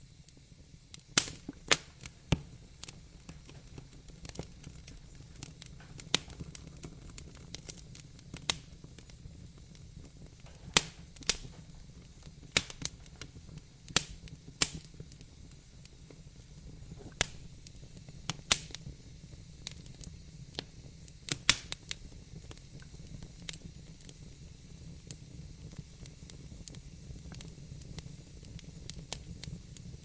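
Wood fire crackling in a fireplace: irregular sharp pops and snaps, some much louder than others, over a low steady rumble.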